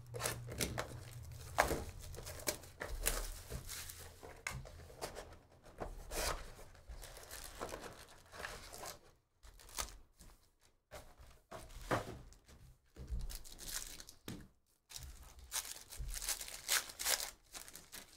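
Cardboard trading-card hobby box being opened and its foil card packs handled and ripped open: a run of irregular tearing, crinkling and rustling.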